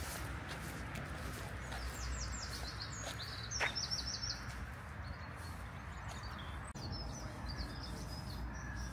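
A small songbird singing short phrases of rapid, high, falling notes: one about two seconds in, a louder one around three and a half seconds, and another near seven seconds. Underneath is a steady low rumble.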